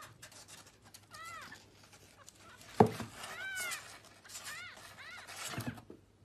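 A kitten mewing: short, high, rising-and-falling mews in three little clusters. There is a single loud thump about three seconds in and a softer bump near the end.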